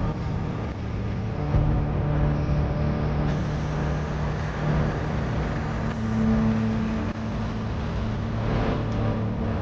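Motor vehicle engine running steadily, with road noise.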